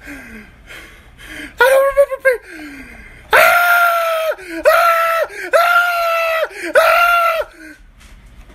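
A person screaming in fright: a short cry about two seconds in, then four long, high, steady screams of about a second each with brief breaks between.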